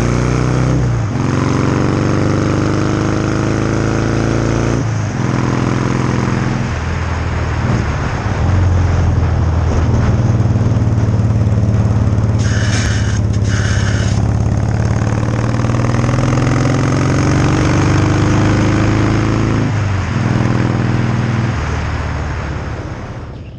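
Harley-Davidson Fat Boy's 1340 cc Evolution V-twin running under way, rising in pitch as the bike accelerates and dropping at several gear changes. It fades out near the end.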